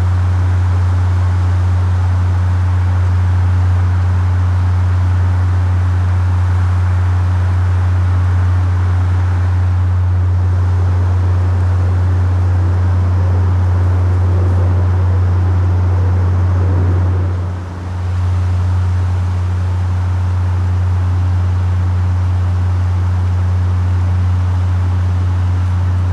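Strange, steady low-frequency hum of unknown source, with a fainter hiss of background noise around it. It dips briefly about two-thirds through, then carries on unchanged. The recordist likens it to the Windsor hum.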